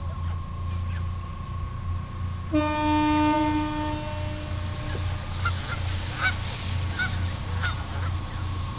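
Canada geese honking in short calls, mostly in the second half, and one long steady horn blast starting about two and a half seconds in and lasting about two seconds, the loudest sound. A steady low hum runs underneath.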